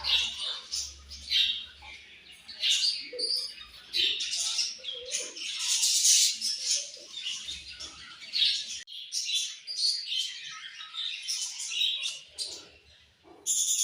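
A flock of budgerigars chirping and chattering: many short, high calls overlapping, busiest about six seconds in.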